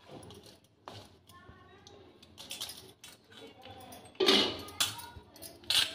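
A kitchen knife cutting soft sweet dough on a steel thali, its blade scraping and clinking against the metal plate, with louder metal clatters about four seconds in and again near the end.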